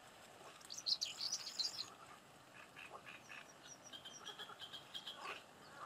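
Faint birdsong: a quick flurry of high chirps about a second in, then a run of short repeated chirping notes through the middle.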